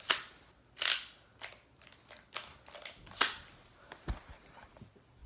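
A series of sharp clicks and snaps: three loud ones about a second in, near one second, and a little past three seconds, with fainter clicks between them.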